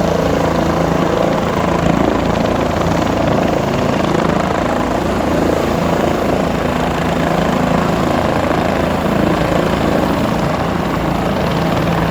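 Helicopter in flight: steady, unbroken rotor and engine noise at an even level.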